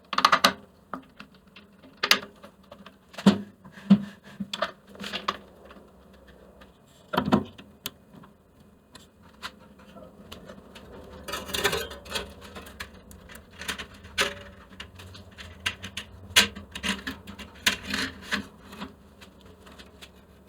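Irregular clicks, taps and knocks of small parts and hand tools being handled on a workbench while the bandsaw is reassembled, with a slightly longer burst of rattling about halfway through.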